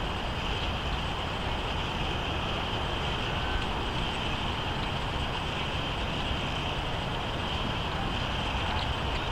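Steady outdoor background noise: a low, unchanging rumble with a hiss above it, with no distinct events.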